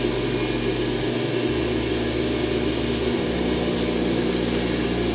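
A steady, even machine hum: a constant motor-like drone with no stitching rhythm in it.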